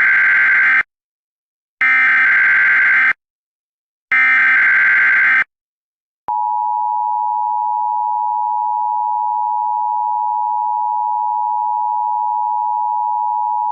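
Emergency Alert System tones: three short, harsh bursts of the SAME digital header about a second apart, then from about six seconds in the steady two-tone EAS attention signal, the signal that an emergency alert broadcast is about to be read.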